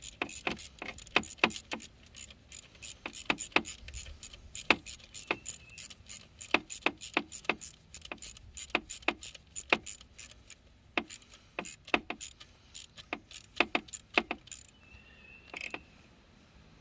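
Ratchet wrench clicking in a steady series of sharp metallic clicks, about three to four a second, while the coil pack's hold-down bolt is run down; the clicking stops about fifteen seconds in.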